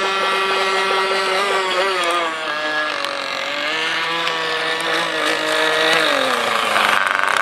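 Small two-stroke nitro (glow-fuel) engine of a radio-controlled model boat running at high revs. Its high-pitched note wavers and dips as the boat turns, then falls about six seconds in. Near the end a louder, rougher engine rasp takes over.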